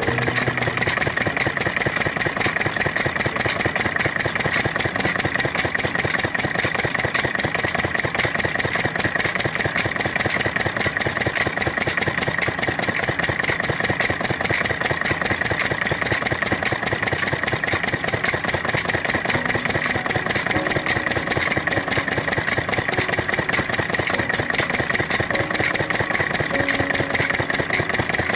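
Miniature model diesel pump engine running at a steady speed: a fast, even chugging clatter with a constant high whine.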